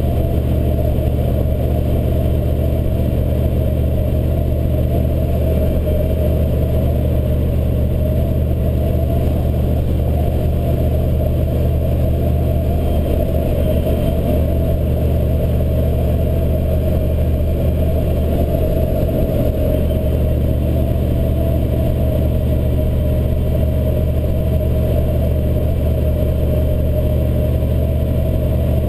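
1983 Chevy C30 pickup with its 6.2-litre diesel V8, driving at a steady speed: engine and road noise heard from inside the cab, holding an even pitch and level throughout.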